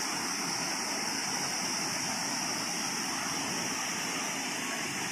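Waterfall cascades giving a steady rushing of water, with a steady high-pitched whine over it.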